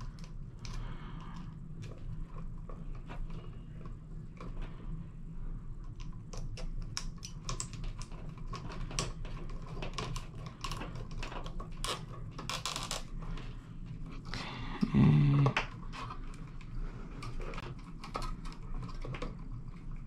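Irregular small clicks and scratches of plastic wire nuts being twisted onto electrical wires and the wires being handled, over a steady low hum. A short louder sound comes about fifteen seconds in.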